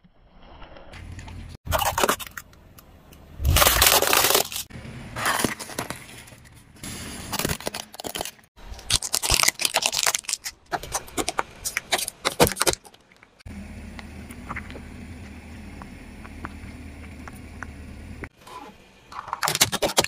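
Car tyre rolling slowly over small objects and crushing them: a run of loud cracks, crunches and snaps, among them plastic toy buses splitting under the tread. A stretch of steady low rumble with faint ticks follows, and more cracking comes near the end.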